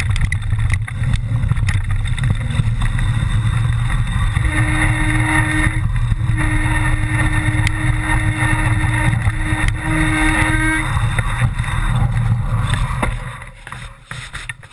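Mountain bike rattling down a rough trail, with wind buffeting the helmet-camera microphone and scattered knocks from the bike. A steady whine joins from about four seconds in until about eleven seconds, and the noise drops away sharply near the end.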